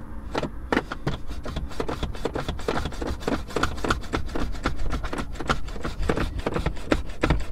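Dense run of irregular clicks and rubbing from things being handled and moved around a car seat, over a low steady hum.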